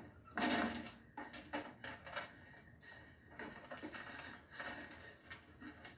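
Film soundtrack heard from a TV's speakers across a room: a sharp crash about half a second in, followed by a run of quieter knocks and clicks.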